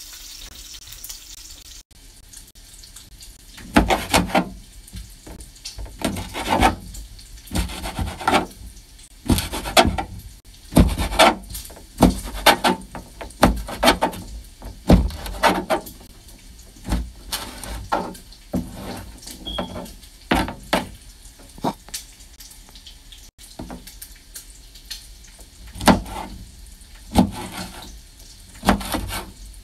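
Kitchen knife chopping cooked sausage links and patties on a plastic cutting board: irregular knocks of the blade on the board, roughly one to two a second, starting a few seconds in.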